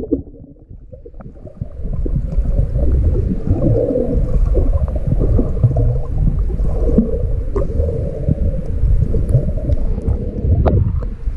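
Water and swimming strokes heard underwater through an action camera's waterproof housing: a muffled low rumble with gurgling and bubbling, and scattered small clicks. It grows louder about two seconds in.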